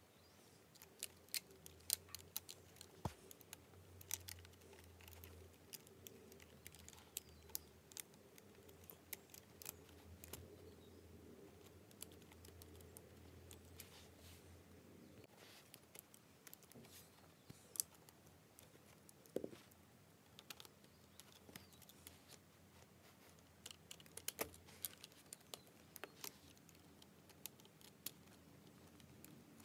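Lego Technic plastic parts clicking and snapping as they are handled and pressed together: scattered sharp clicks, some in quick little clusters.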